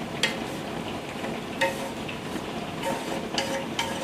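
Seafood stir-fry in a thickened brown sauce sizzling softly in the pan. A utensil clicks against the pan a few times.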